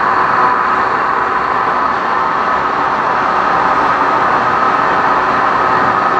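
Countertop blender running steadily, its motor blending cut fruit and water into a smoothie.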